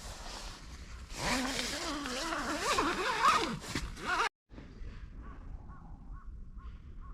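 Crow cawing harshly for about three seconds, cut off abruptly, then faint short bird calls repeating about twice a second.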